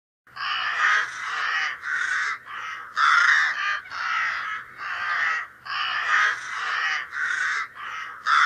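Crows cawing: a run of about a dozen harsh caws, one after another with barely a pause between them.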